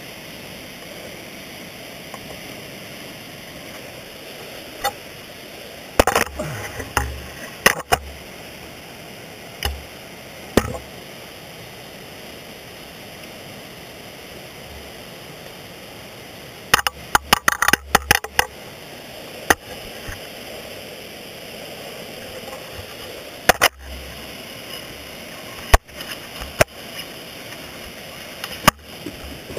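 Ice tools hooking and scraping on rock during dry tooling: sharp metal-on-rock knocks and clicks, single ones spaced several seconds apart and a rapid flurry a little past the middle, over a steady hiss.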